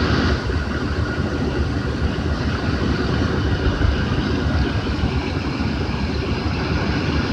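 Pickup truck engine idling steadily, heard close up from beside the open hood.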